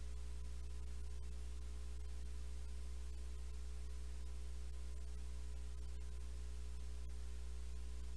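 Steady low electrical hum with faint background hiss, unchanging throughout.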